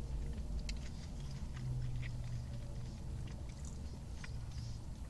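A person chewing a mouthful of burger, with small scattered clicks and ticks, over a steady low hum.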